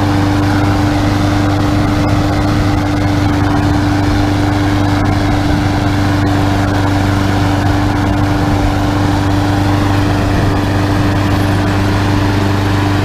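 Riding lawn mower engine running loudly at a steady speed, its pitch holding constant without revving.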